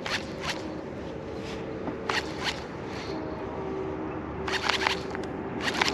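Steady electric hum of a bass boat's trolling motor holding position, with a few short hissing scrapes now and then.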